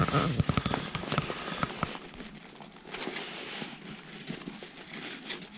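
Stiff backpack fabric crinkling and crackling as hands work a stabilizer rod through the pack's pocket, a dense run of crackles in the first two seconds, then scattered rustles.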